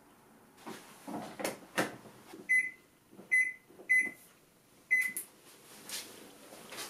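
Front-loading washing machine being set going: a few knocks and clacks as the plastic detergent drawer is handled and pushed shut, then four short, high-pitched beeps from the control panel as its buttons are pressed.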